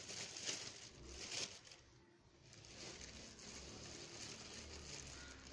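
Faint rustling and crinkling handling noise in the first second and a half, as yarn and cloth are moved about, then only a low steady hum.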